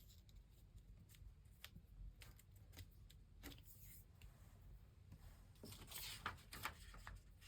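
Near silence with faint rustles and light taps of paper being handled, growing busier near the end.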